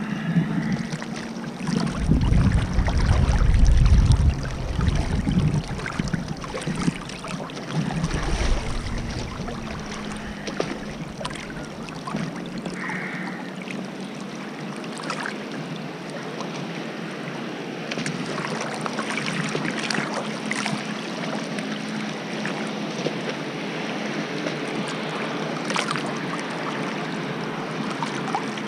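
Lake water sloshing and splashing around a wakeboarder floating at the surface, close to the microphone. Heavy wind rumble on the microphone comes a couple of seconds in and again around eight seconds. A steady low hum from the waiting tow boat's engine runs underneath.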